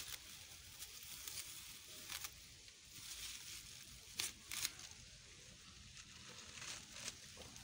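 Faint rustling and crackling of a cloth wrapping being pulled and unwound by hand from a tractor-mounted hydraulic distributor valve, with a few sharp crinkles scattered through, the loudest two close together about four seconds in.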